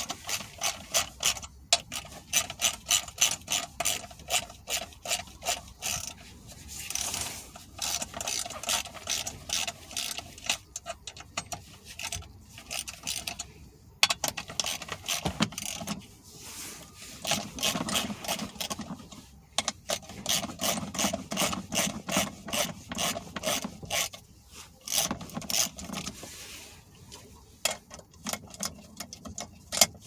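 Socket ratchet clicking in long runs of rapid strokes, broken by short pauses, as it loosens the 10 mm bolts that hold an accelerator pedal to its bracket.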